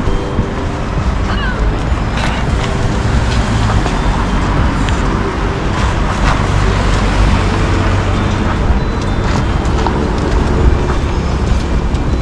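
Busy city street ambience: a steady low rumble of road traffic passing, with scattered voices of passers-by.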